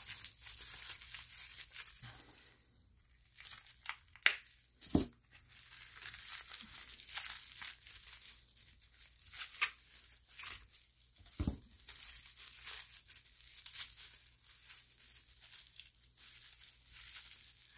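Clear plastic wrapping crinkling and tearing as it is pulled apart by hand, irregular throughout, with a few sharp snaps.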